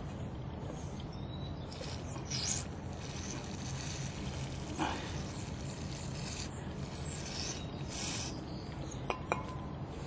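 Several short hissing bursts of aerosol mass airflow sensor cleaner sprayed through its straw nozzle onto a VVT oil control valve to clean it. A steady low rumble runs underneath, and two sharp clicks come near the end.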